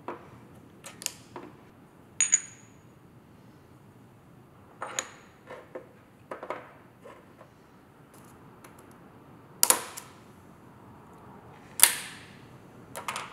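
Steel gearbox gears and shaft clinking as they are handled and set down on a steel table: scattered sharp clicks, two of them ringing briefly with a high metallic tone, and two louder knocks in the second half.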